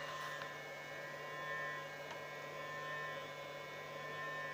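Power inverter humming under a pulsing load: a steady low hum with a thin high whine over it. It drives a 500 W immersion heater through a diode, and the pulsed supply is what makes the inverter hum.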